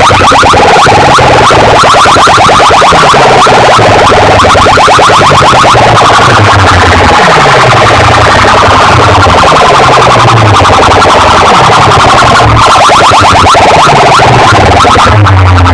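Electronic DJ music played through a large outdoor sound system at extreme volume, distorted and clipping. A rapid buzzing pulse runs over a deep bass drop that falls in pitch about once a second.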